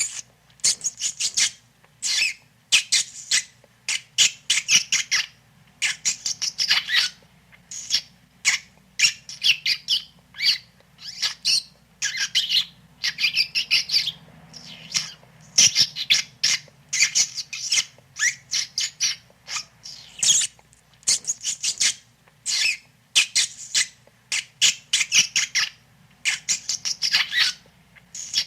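Rat squeaking sound effect: rapid high-pitched squeaks in short clusters, one after another with brief gaps, over a faint low hum.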